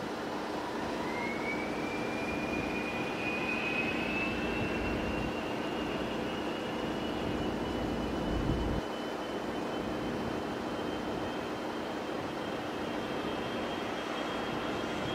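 Twin-engine Gulfstream business jet taxiing, its turbofan engines giving a steady hiss under a thin whine that rises sharply about a second in and then keeps creeping higher in pitch.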